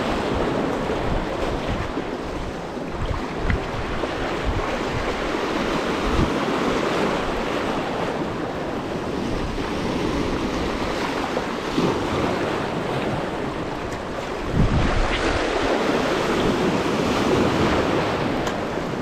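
Sea surf washing over rocks, with wind buffeting the microphone; the wash swells and eases, with a louder surge about fifteen seconds in.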